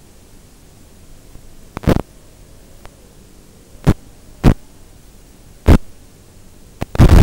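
Audio of an analog FPV video receiver: a steady low hiss and hum broken by about five short, loud bursts of static, typical of brief breakups in the radio link.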